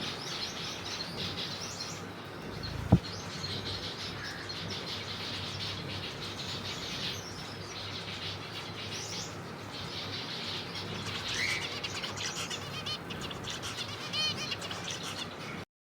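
A colony of zebra finches calling, many short chirps overlapping continuously, with one sharp knock about three seconds in. The sound cuts off abruptly just before the end.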